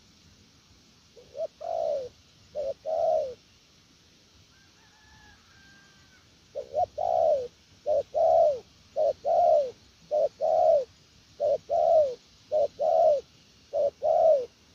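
Spotted dove cooing: two phrases, a pause of about three seconds, then a run of seven more at roughly one a second. Each phrase is a short note or two followed by a longer, falling coo.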